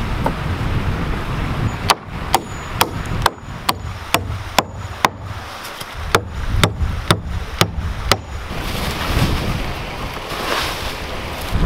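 Claw hammer driving nails into weathered barn-wood boards: two runs of sharp blows, about two a second, over a low wind rumble on the microphone. In the last few seconds the hammering stops and only a rushing wind noise remains.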